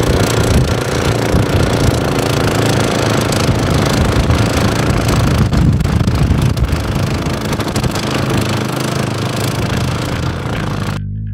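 Suzuki King Quad 700 ATV's single-cylinder engine and its front-mounted snowblower running together under load as the tracked ATV clears snow. The machine noise is loud and steady. It cuts off sharply near the end, where a bass guitar comes in.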